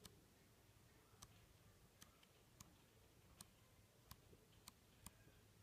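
Near silence with faint, sharp ticks about once a second, irregularly spaced, as the pages of a CD album's photo book are flipped by hand.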